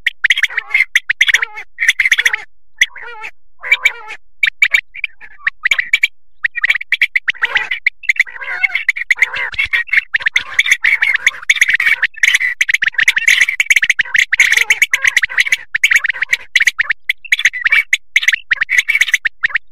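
Common quail calling: quick, sharp, high-pitched calls repeated over and over and overlapping, sparse at first and almost unbroken from about eight seconds in. It is a quail-call recording of the kind played to lure migrating quail for hunting.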